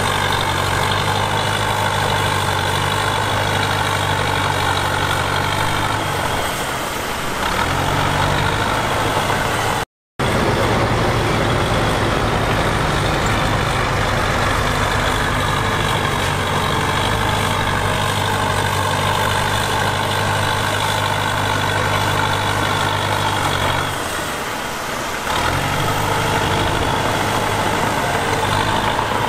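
Diesel engine of a CAT D3K2 XL crawler bulldozer running steadily under work. Twice its low hum sags for about a second, and the sound cuts out for a moment about a third of the way in.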